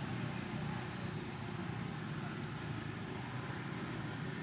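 Steady low rumbling outdoor background noise with no distinct event.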